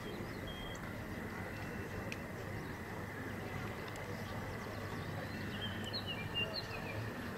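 Steady outdoor background noise on an open field, with a few short, high chirps about six seconds in.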